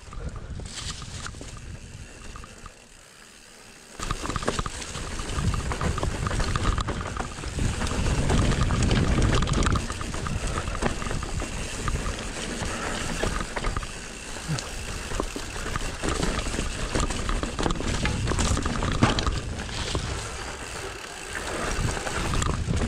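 Ride noise of a mountain bike on a dirt trail: a rough, steady rush, quieter for the first few seconds and then loud from about four seconds in.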